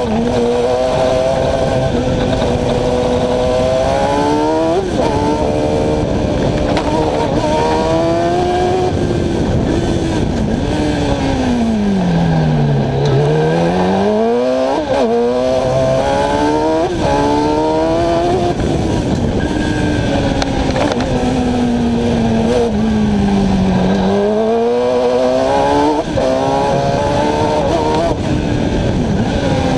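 Competition car's engine heard from on board during a fast run around a cone course, revving up and down as it accelerates and slows. Its pitch falls to a deep low twice, about halfway through and again near the end, before climbing again, with a few brief sharp blips between.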